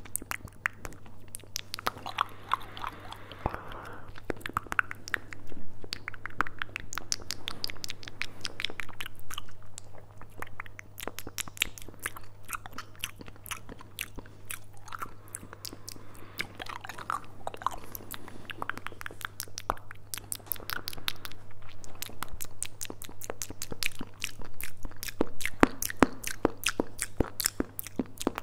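ASMR mouth sounds made right at a furry-windscreened microphone: rapid clicks and smacks of lips and tongue, with a steady low hum underneath.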